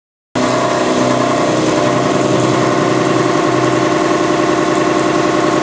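CNC machining center face-milling with an 80 mm six-flute cutter in a standard toolholder at about 636 RPM under coolant spray: a loud, steady cutting sound with several steady tones, starting abruptly about a third of a second in. The maker says this cut vibrates and leaves chatter marks because the holder has no flange-to-spindle-face contact.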